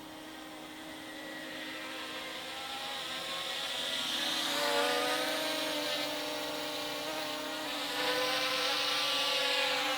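Small multirotor drone flying, its motors and propellers giving a whining buzz of several pitches that drift up and down. It grows louder over the first half, eases a little, then rises again about eight seconds in.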